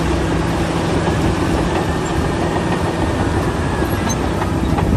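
A loud, steady machine-like noise with a low hum, running without a break.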